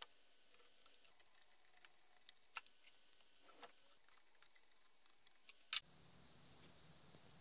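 Near silence with faint scattered clicks and taps of small plastic chainsaw parts being handled. The loudest is a sharp double click about three-quarters of the way in.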